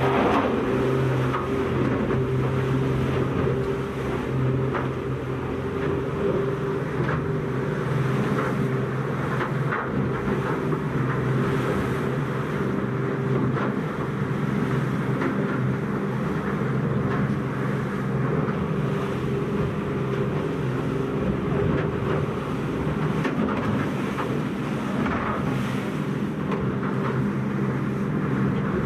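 Boat engine running steadily under way, a constant low engine note with a noisy rush over it and occasional short splashes or gusts.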